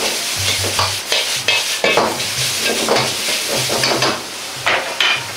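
Metal ladle scraping and turning bean sprouts, carrot and chicken in a sizzling wok, in repeated strokes about twice a second over a steady frying hiss.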